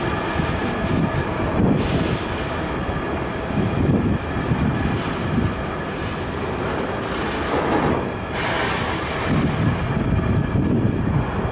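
Container freight train's flat wagons rolling past close by: a steady rumble and clatter of steel wheels on the rails, swelling a little every second or two as wheelsets go by.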